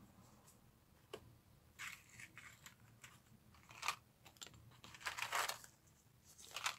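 Cardboard button cards being handled and shuffled: faint rustling of card with scattered light clicks and taps, the longest rustle about five seconds in.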